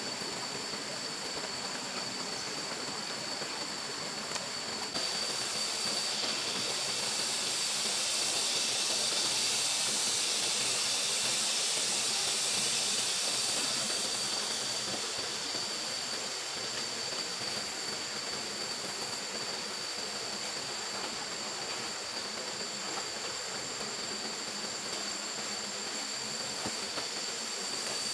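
Water running and splashing along a shallow dug ditch, a steady rushing hiss that grows louder for several seconds in the middle before settling back.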